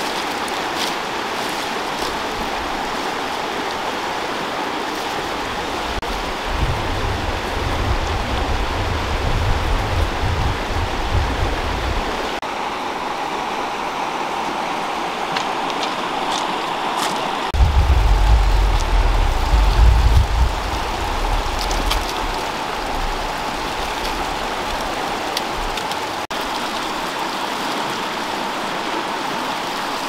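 Steady rushing of a flowing river. Twice it is joined by a spell of low rumbling, the second, just past halfway, the loudest.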